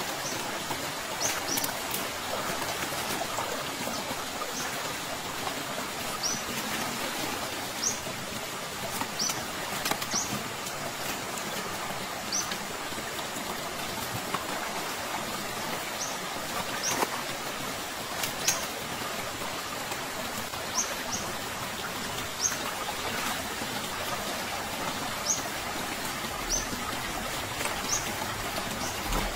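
River water running steadily, with short high chirps at irregular intervals every one to three seconds and a few sharp clicks.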